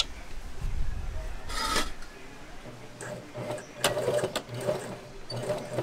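Juki electric sewing machine stitching through folded denim. There is a low rumble at first and a brief rustle a little under two seconds in. After that the machine runs in short starts and stops.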